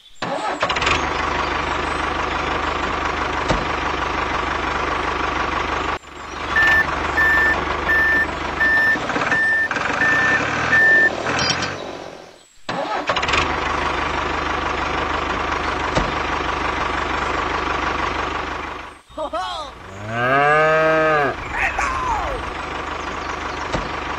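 Tractor engine sound running steadily, broken off and resumed a few times. In the middle comes a run of about eight evenly spaced reversing beeps, and near the end a short burst of swooping tones that rise and fall.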